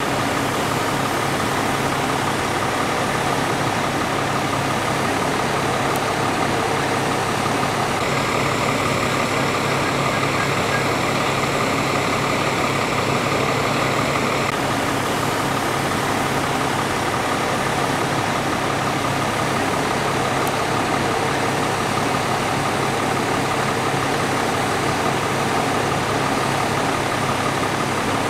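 Fire engine's engine and pump running steadily at the fire scene, a constant drone with a few fixed tones. A higher hiss joins for about six seconds in the middle.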